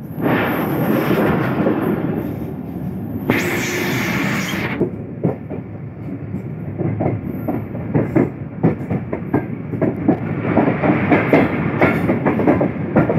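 Passenger express train running at speed, heard from aboard: a steady rumble of wheels on the track, with a brief louder hissing rush about three seconds in. From about halfway on come fast clickety-clack knocks of the wheels over the rail joints.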